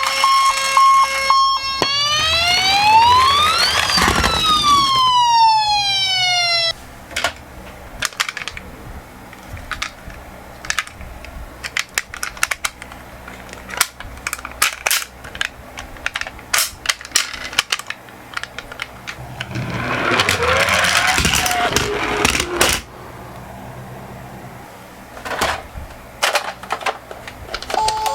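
An ambulance-style siren: a steady electronic tone, then one wail that rises for about two seconds and falls away. It is followed by scattered light clicks and clatters of small die-cast toy cars rolling down a slope, with a louder rushing burst about twenty seconds in.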